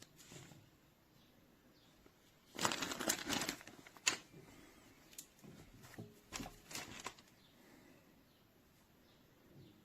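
Short bursts of rustling and scuffling, with a sharp knock in between.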